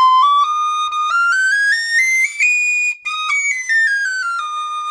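Nickel Killarney tin whistle in E-flat playing a scale, stepping note by note up into its second octave. It peaks about halfway through, then steps back down.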